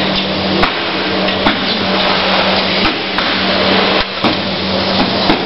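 Irregular hammer blows, about six short knocks, over a loud steady mechanical hum and noise.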